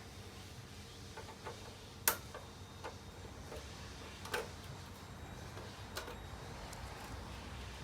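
Scattered light clicks and knocks at uneven intervals, about seven in all, the sharpest about two seconds in and just past four seconds, over a faint steady low hum.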